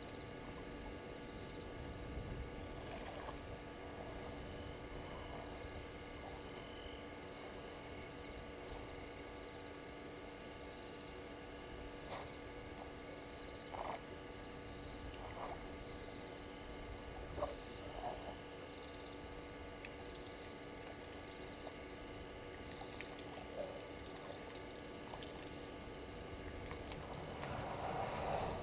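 Night insect chorus of crickets: a continuous high, fast-pulsing trill, with a shorter chirp repeating a little more often than once a second.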